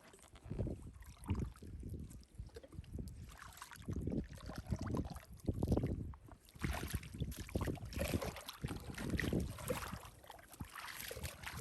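Irregular low thumps and sloshing, with wind buffeting the microphone, busier from about halfway through.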